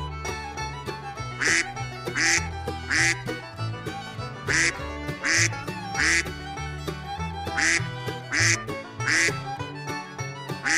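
Domestic duck quacking in three runs of three quacks, each quack short and about three-quarters of a second apart, over background music with a steady beat.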